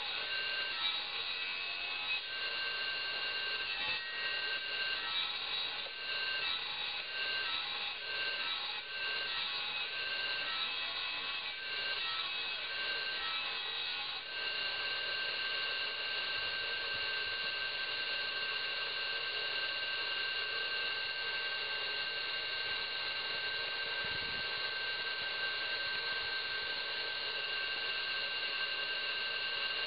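Belt-driven electric circular saw cutting through branch wood, the pitch wavering as the blade is loaded with each push. About halfway through, the cutting stops and the saw spins freely with a steady high whine.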